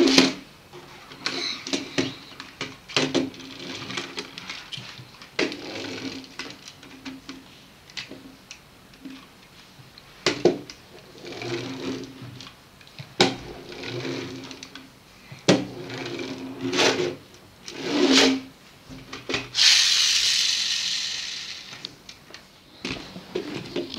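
Pull-back spring motor of a Cada Technic brick-built toy truck whirring in short runs as it is pulled back and let go again and again, with knocks of the plastic wheels and bricks on a wooden table between runs. Near the end comes a longer, louder whir.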